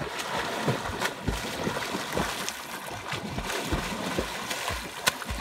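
A swimmer's arms and legs beating the surface of the water: an irregular, continuous run of splashes.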